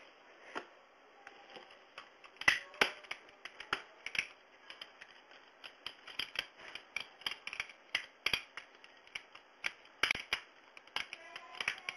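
Plastic segments of a Rubik's Twist puzzle clicking as they are rotated against each other, in quick irregular runs of clicks. The loudest clicks come about two and a half seconds in and again about ten seconds in.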